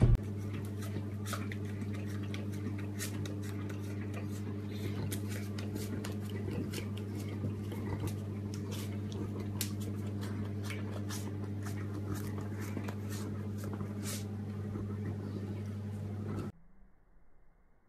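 A Saint Bernard chewing and mouthing at paper on the floor: irregular crinkling clicks and wet smacks over a steady low hum. It stops abruptly near the end.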